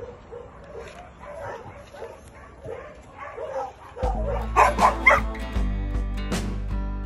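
Puppies whimpering and yipping in a string of short, high cries. About four seconds in, background music starts abruptly and carries on.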